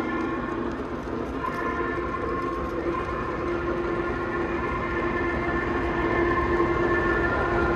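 Three-rail O-gauge model train running on the track: a steady running noise with several held tones underneath.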